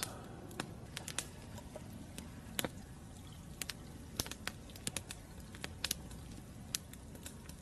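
Campfire crackling: irregular sharp pops and snaps from the burning wood over a steady low hush.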